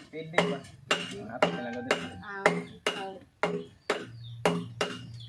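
Hand hammer striking a small steel gaff blank held on a steel anvil block, about two blows a second, each blow ringing briefly.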